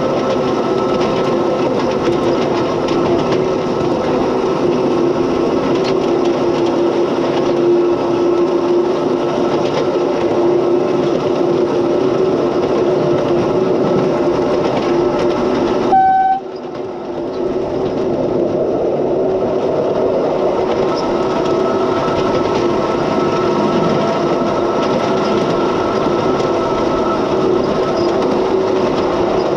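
7¼-inch gauge miniature mining locomotive running along its track with a steady hum and the sound of its wheels on the rails. About halfway through there is one short horn toot, after which the running sound drops suddenly and builds back up over a few seconds.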